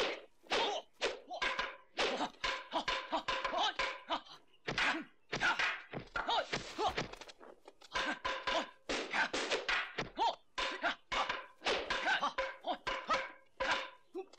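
Rapid series of dubbed fight sound effects in the 1970s Hong Kong kung fu film style: punch thwacks and wooden staff strikes, about two a second.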